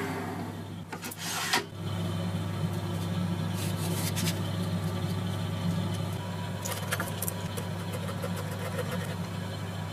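Abrasive rubbing and scraping over a steady low motor hum, with a few light clicks.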